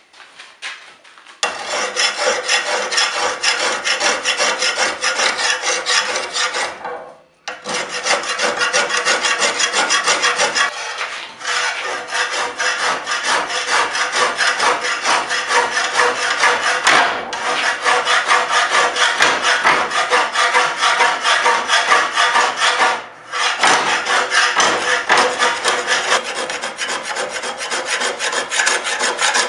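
Hand-made sen scraper shaving forge scale and steel chips off a sword blade clamped in a vise: a dense scraping chatter, stroke after stroke, with short pauses about seven, eleven, seventeen and twenty-three seconds in.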